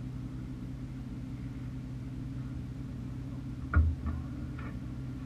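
Kart cross buggy's engine idling steadily, with a sharp thump a little under four seconds in and two fainter knocks just after.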